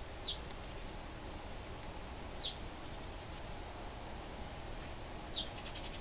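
Eurasian tree sparrows calling during a fight: three short, sharp chirps about two and a half seconds apart, each falling in pitch, the last followed by a quick rattle of ticks.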